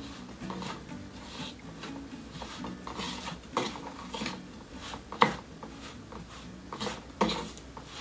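A metal spoon scraping and knocking against a metal mixing bowl while stirring a thick bread dough of corn flour, wheat flour and mashed yam as milk is worked in. The strokes come at an irregular pace, and the sharpest clink is about five seconds in.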